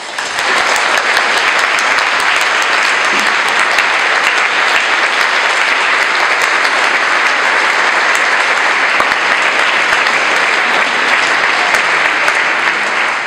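Audience applauding after a choir's song, starting suddenly and staying steady and loud, then starting to thin out near the end.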